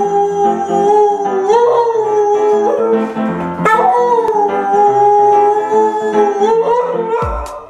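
A dog howling in long drawn-out notes that swoop up in pitch a few times, over background music.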